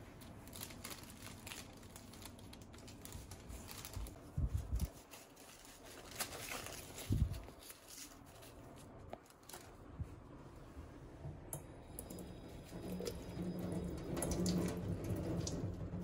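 Food-prep handling at a stainless steel kitchen sink: paper towel and plastic bag rustling and crinkling as sweet potatoes are handled and wrapped, with light taps and clicks. A few soft thumps come about four and seven seconds in, and the rustling grows denser near the end.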